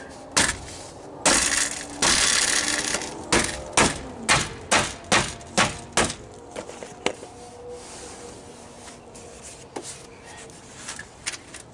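Hands working a plastic bumper end cap onto a pickup's front bumper to seat its fasteners: sharp knocks on the plastic, about two a second for a few seconds, with rubbing and scraping of plastic in between. Fainter clicks follow.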